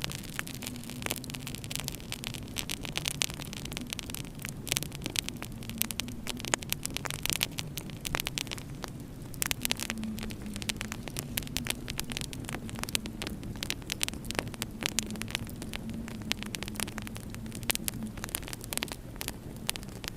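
Fireplace fire crackling, with irregular sharp pops throughout over a steady low hum.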